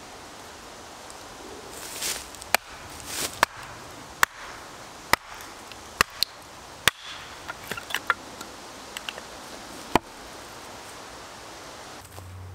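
An axe striking and splitting firewood set on a chopping stump: about eight sharp wooden strikes roughly once a second, with a few lighter knocks between them.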